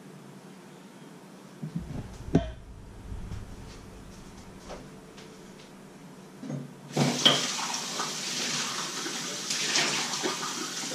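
A kitchen tap turned on about seven seconds in, water running into a stainless steel sink as a mug is rinsed, with light clinks. Before that, a single heavy clunk about two seconds in and a few small knocks.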